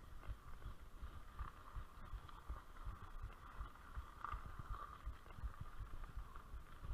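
Mountain bike rolling over a rough dirt track: a steady rolling noise with irregular low thumps and knocks from the bumps.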